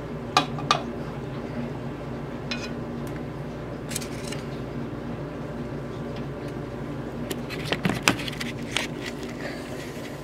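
A steady low hum with scattered light clicks and knocks of hard objects: a sharp pair about half a second in, single ticks around two and a half and four seconds, and a cluster near eight seconds.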